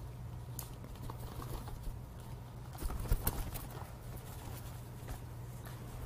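Faint fluttering and taps of an American kestrel flapping its wings and shifting its feet on a leather falconry glove as it rights itself, a little louder about halfway through, over a steady low hum.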